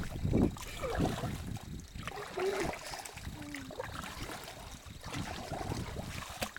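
Kayak paddling: paddle blades dipping into the water, with water trickling and dripping off them. Underneath is an uneven low rumble on the microphone.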